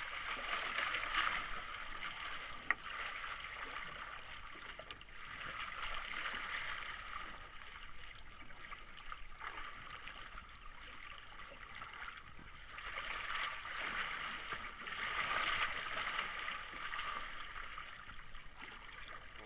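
Sea water sloshing and splashing against the hull of a small fishing boat, swelling and fading in waves, with one sharp click about three seconds in.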